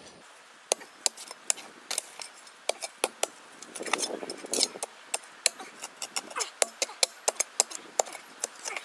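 Long-handled metal shovel digging into dry, stony soil: a quick, irregular series of sharp clicks and knocks as the blade strikes the ground, with a longer scrape of loose soil about four seconds in.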